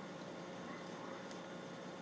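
Quiet steady room tone: an even hiss with a faint constant hum, and a single faint tick about a second and a quarter in.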